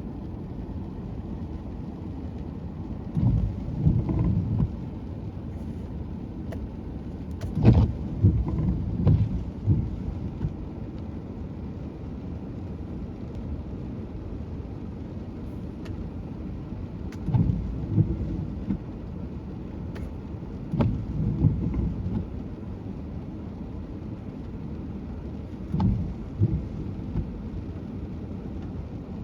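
Ocean surf from a typhoon-raised swell breaking on a beach: a steady low rumble with about five louder surges as waves crash.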